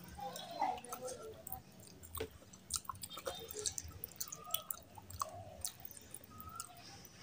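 Close-up chewing and lip smacking from a person eating, mixed with wet, sticky squishing and clicks as fingers knead rice into oily curry on a plate.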